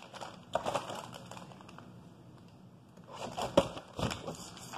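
Plastic wrapping crinkling and crackling as gingerbread house kit pieces are handled and set on a table, with small clicks and knocks. It comes in two spells, briefly near the start and again in a denser run of sharp crackles about three seconds in.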